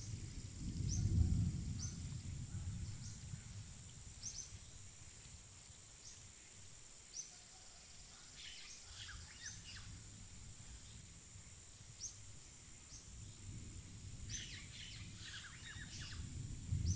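Birds chirping: short high chirps repeat throughout, with two busier flurries in the middle and near the end, over a steady high insect-like hiss. A low rumble is loudest in the first two seconds and swells again near the end.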